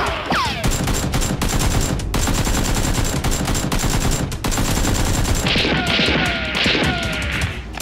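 Rapid automatic gunfire sound effects, shots in quick succession throughout, with falling whistling sweeps just after the start and again in the last two seconds.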